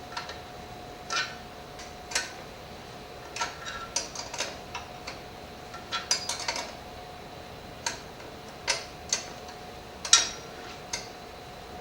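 Irregular metallic clicks and clinks of a 10mm wrench working the brake pad assembly's nut on an indoor exercise bike. The nut is held under tension from the brake and is hard to turn.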